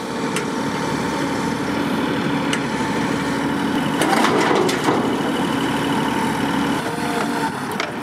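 Bobcat E42 compact excavator's diesel engine running steadily with its hydraulics working as the boom swings back from the dump trailer after dropping a chunk of concrete stairs. About halfway through there is a brief rougher, noisier stretch.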